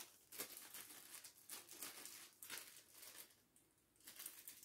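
Faint crinkling and rustling of a small clear plastic parts bag being handled and opened, in a run of short rustles with a brief lull about three and a half seconds in.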